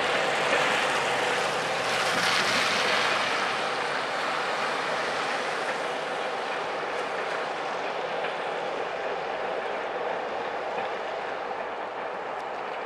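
Freight train wagons rolling away on the rails: a steady rush of wheel noise that slowly fades as the last cars recede around a curve.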